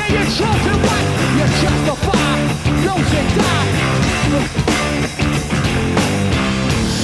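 Guitar-driven rock music with a steady, dense band sound.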